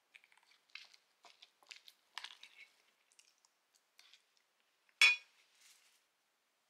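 Light kitchen handling sounds: scattered small clicks and crunches of food and utensils, with one louder short scraping burst about five seconds in.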